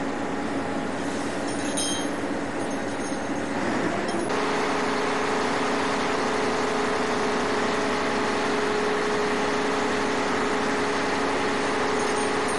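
Ship's engine running with a steady hum of several held tones, which steps up to a higher, stronger tone about four seconds in.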